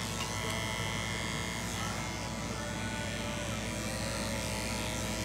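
Andis two-speed electric pet clipper with a #10 blade running steadily, shearing through the long wool of an English Angora rabbit.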